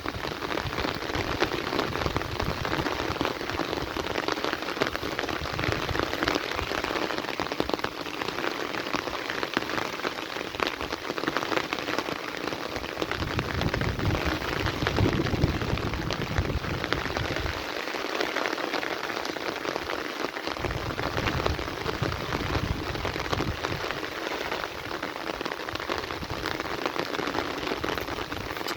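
Heavy rain falling steadily, a dense patter of countless drops, with a low rumble swelling in the middle.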